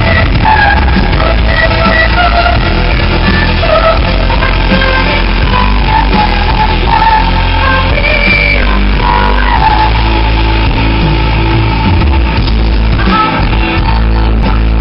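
Symphonic metal band playing live and loud, heavy bass and guitars under a woman's sung melody line. The crowd-shot recording is dull, with no treble.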